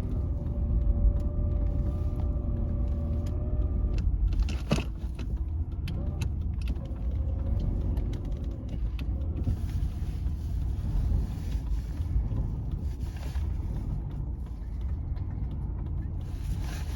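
Plow vehicle running with a heavy, continuous low rumble. A steady whine over it stops about four seconds in, and scattered clicks and knocks sound throughout.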